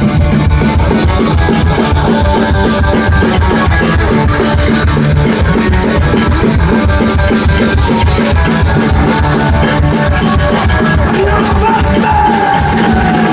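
Live rock band playing loud: electric guitar over a fast, steady drum beat.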